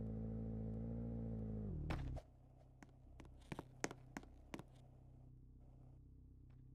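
An engine running steadily, winding down in pitch and stopping about two seconds in, followed by a handful of sharp clicks and knocks.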